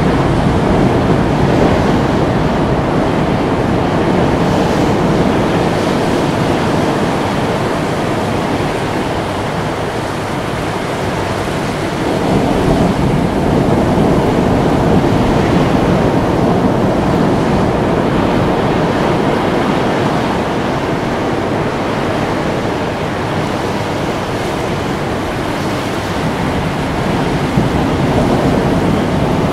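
Ocean surf: waves breaking and washing over a rocky shore in a steady rush that eases and swells again about midway.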